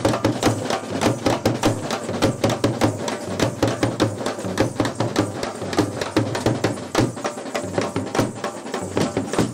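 A band of large double-headed drums beaten with sticks, playing a fast, driving rhythm of dense, sharp strokes without a break.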